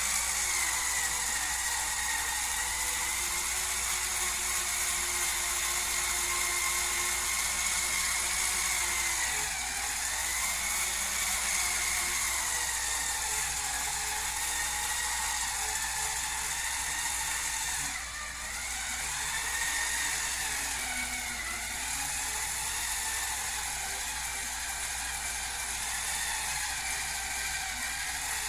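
Hurricane Spin Scrubber's small electric motor whirring as the spinning brush head runs, its pitch slowly wavering up and down, with a brief drop in loudness partway through.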